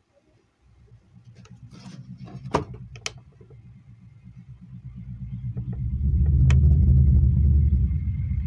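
Impex 5.1 home theatre subwoofer playing deep, pulsing bass that grows much louder over the first six seconds, with a few sharp clicks on top. The bass comes through clean, without crackle or hum, now that its bulged filter capacitors have been replaced.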